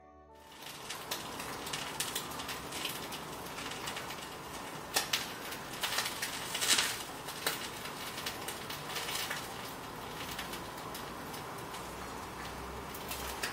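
A ladle spooning thick curry onto noodles in a porcelain bowl: soft wet plops and light clinks over a steady hiss, with the loudest clatter about five to seven seconds in.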